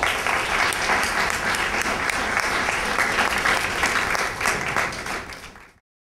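Audience applauding, a dense patter of many hands clapping that fades away about five seconds in and then cuts off abruptly.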